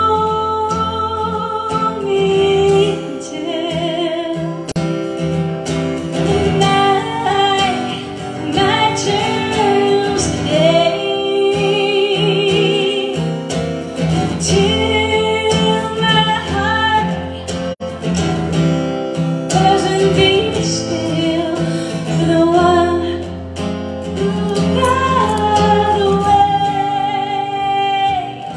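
A woman singing live with vibrato over a strummed acoustic guitar. Near the end the guitar stops while her last held note slides down and fades.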